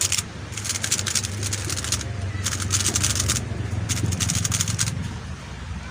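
MoYu RS3M 2020 magnetic 3x3 speedcube being turned fast by hand: four spurts of rapid plastic clicking and rattling with short pauses between them.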